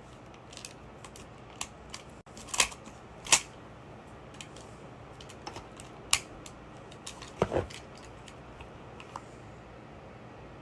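Irregular sharp clicks and knocks of a CO2 BB revolver being handled, with four louder clicks and a duller knock about seven and a half seconds in.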